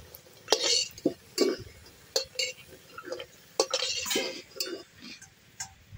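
Metal spatula scraping and clinking against a metal kadai in short, irregular strokes as fried lentil dumplings (bori) are scooped out of the oil.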